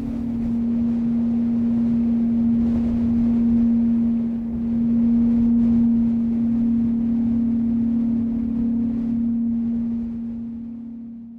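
A single low drone note held steady over a rushing, wind-like noise, swelling slightly in the middle and fading out near the end.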